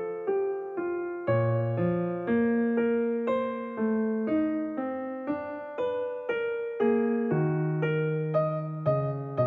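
Background piano music: a slow melody with chords, notes struck about twice a second and each fading away after it is struck.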